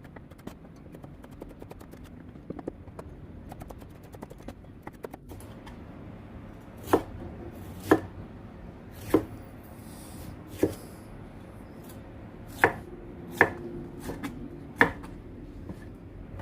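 Kitchen knife slicing bell peppers into strips on a chopping board. At first there are light, quick cutting ticks, then about eight sharper knocks of the blade on the board, roughly one a second, in the second half.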